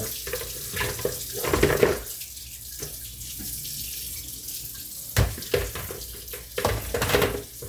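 Kitchen sink tap running steadily into the basin while dishes are rinsed, with a few louder knocks and clatters about a second and a half in and again in the last few seconds.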